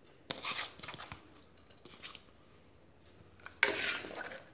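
A steel spoon stirring chicken soup in an aluminium pot, scraping and rubbing against the pot in two short bursts: one about a third of a second in, and a louder one near the end.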